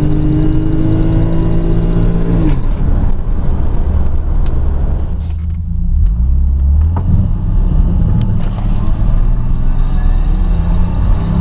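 Turbocharged Toyota 1JZ-GTE straight-six engine in a BMW E34 pulling hard with its pitch rising, then dropping off abruptly about two and a half seconds in and running roughly, before climbing again near the end. This is the break-up under boost of an engine with a failing knock sensor (code 52). A rapid high-pitched beeping sounds while the revs climb.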